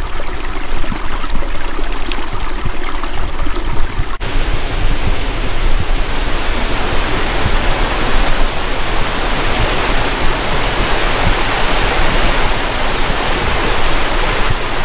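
Rushing water of a hill stream tumbling through a wooded gully toward a waterfall, a steady hiss that becomes louder and fuller after an abrupt break about four seconds in.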